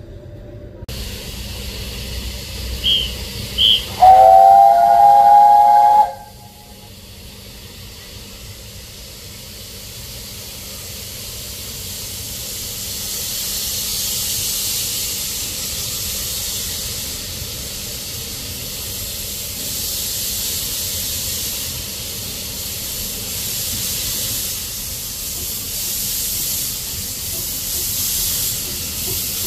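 Two short high peeps, then the steam whistle of the narrow-gauge steam locomotive Bonnie Dundee (Kerr Stuart No. 720) sounds for about two seconds as a chord of several tones as it starts away. A hiss of steam follows, growing louder as the engine comes nearer and then holding steady.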